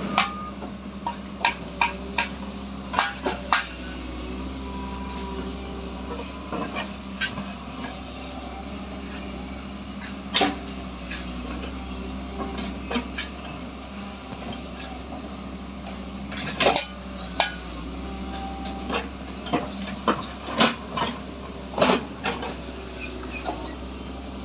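Backhoe's engine running steadily, with sharp metallic clanks and knocks coming at irregular intervals.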